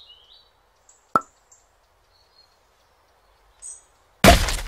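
Cartoon outdoor ambience: a few faint high bird chirps over a soft steady hiss, with one sharp click about a second in. Near the end, loud sudden thuds start as the cartoon fighter punches a blocky Minecraft tree.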